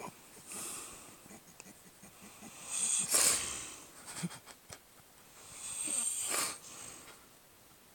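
A sleeping man snoring: three loud, rasping breaths about three seconds apart, the loudest about three seconds in, with a few faint clicks between them.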